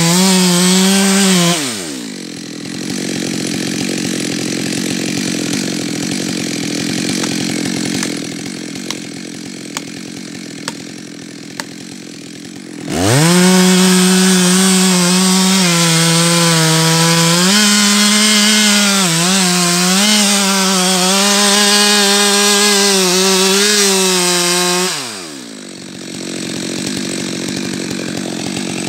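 Stihl MS 462 two-stroke chainsaw running at full throttle, then dropping back to idle about two seconds in. It idles for about ten seconds with a few sharp cracks, revs back up to full throttle for about twelve seconds with its pitch dipping under load, and falls back to idle near the end.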